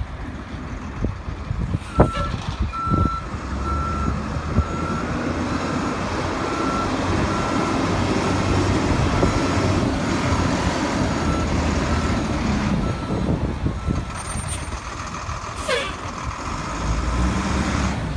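1995 E-One fire truck backing up: its reversing alarm gives a steady series of single-pitched beeps over the running engine. A sharp knock comes as the beeping starts, and the beeping stops a few seconds before the end.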